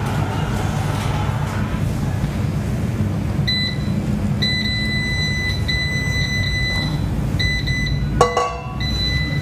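Electric oven's touch control panel beeping as its buttons are pressed to set the temperature: from a few seconds in, a run of short high beeps, some held about a second, some in quick pairs. Underneath runs a steady low hum.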